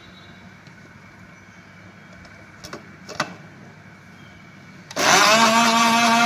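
A couple of faint clicks, then about five seconds in an electric countertop blender switches on with a sudden loud whir, its pitch rising briefly and settling into a steady motor whine as it grinds a wet green chutney.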